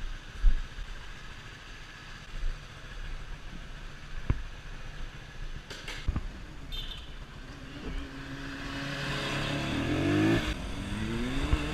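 Voge Brivido 125R's single-cylinder 125 cc engine on its stock exhaust, ticking over quietly with a few sharp clicks. About eight seconds in it pulls away: the pitch rises, drops at a gear change near the end, and climbs again.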